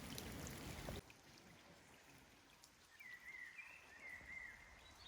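A hiss with scattered crackles cuts off about a second in, leaving faint outdoor quiet. In it a small bird sings two short warbling phrases, about three and four seconds in.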